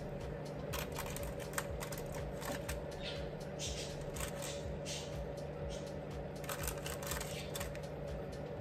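Silicone-tipped kitchen tongs clicking as stuffed mushrooms are lifted from a parchment-lined air fryer basket and set down on a glass plate, with brief rustles of the parchment. A steady low hum runs underneath.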